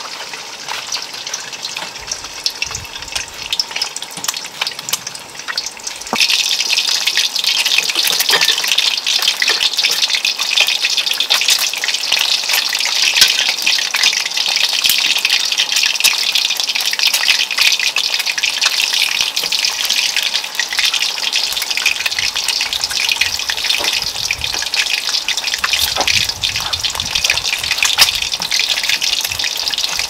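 Eggs frying in hot oil in a metal wok: a steady crackling sizzle that gets clearly louder about six seconds in.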